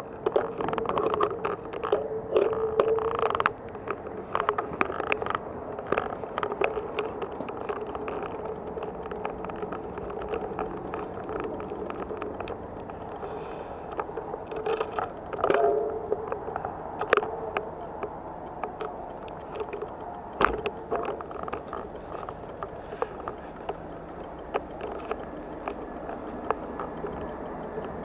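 Bicycle rolling slowly over asphalt, with frequent sharp clicks and rattles from the bike and its camera mount over a steady hum.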